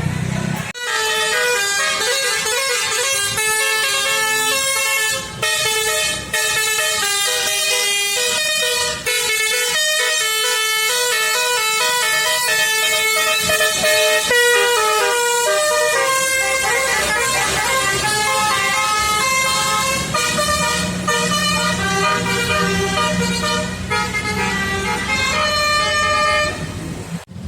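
Telolet horn on a basuri fun-ride vehicle: a bank of multi-tone horns playing a melody, with loud held notes stepping from pitch to pitch. The tune starts about a second in and cuts off just before the end.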